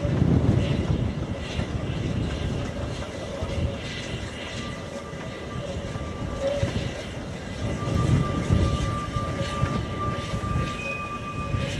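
Ex-South African NGG16 Garratt steam locomotive no.143 working a passenger train slowly round a curve, a steady low rumble with a thin high squeal in the second half. Wind gusts on the microphone swell the rumble about a second in and again near the end.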